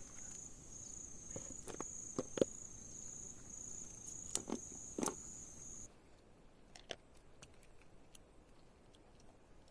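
Insects chirping in a steady, evenly pulsing high trill, with a few light knocks and clicks scattered through the first half. About six seconds in, the trill gives way suddenly to a fainter, much higher-pitched one.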